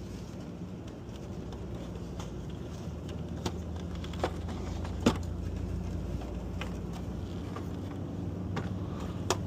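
A few scattered light clicks and taps from handling wiring and parts inside a mini-split unit, over a steady low hum.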